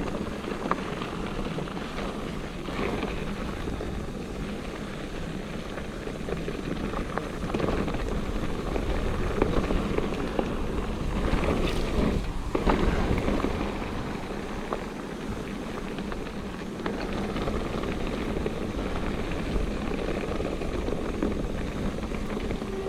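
Mountain bike rolling along a dirt trail: wind buffets the camera microphone over the steady noise of tyres and a rattling frame, with a few sharp knocks about halfway through.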